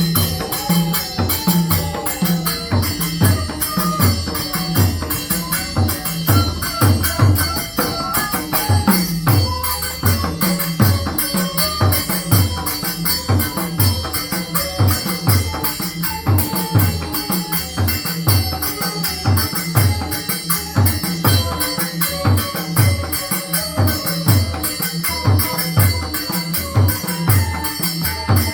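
Newar mridanga drum playing a steady rhythmic pattern, its low strokes sliding down in pitch, with small cymbals jingling continuously and a bansuri flute tune carried faintly above.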